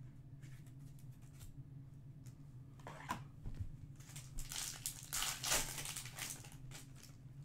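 Foil wrapper of a Topps Chrome Match Attax trading-card pack crinkling and tearing as it is ripped open by hand. The crackling starts about three seconds in and is loudest about five seconds in.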